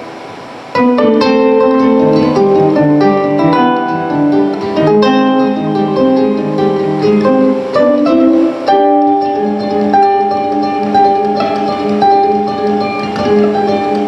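Solo plucked-string instrument playing live: soft for the first second, then busy runs of plucked notes, settling about nine seconds in into a repeating figure over held tones.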